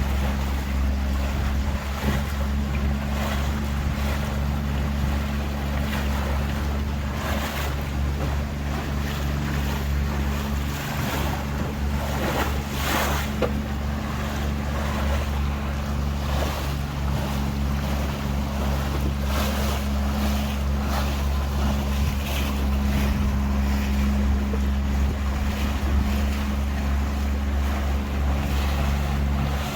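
Tour boat's inboard engine running at a steady speed, a constant low hum, with water rushing past the hull and wind on the microphone.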